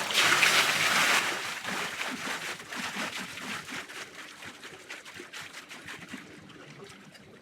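Hot tub water splashing as people duck under, then sloshing and trickling as it settles, fading steadily.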